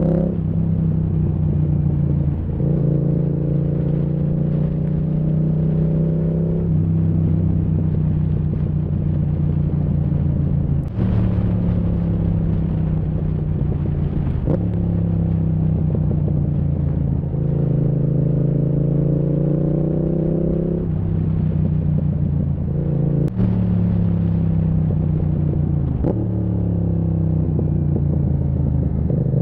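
Yamaha MT-07's 689 cc parallel-twin through a Zard aftermarket exhaust, pulling through the gears: the revs climb and drop back again and again as it shifts. There are a few sharp pops, which the owner puts down to misfires caused by the Zard exhaust in 2nd, 3rd and 4th gear.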